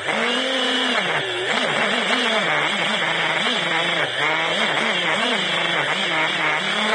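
Small FPV quadcopter's electric motors and propellers buzzing, heard close from the onboard camera, the pitch rising and falling over and over as the throttle changes in low flight.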